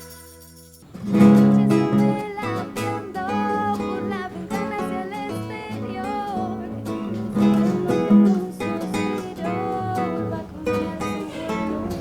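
Music: strummed acoustic guitar with a melody line over it, starting about a second in after a fading held note.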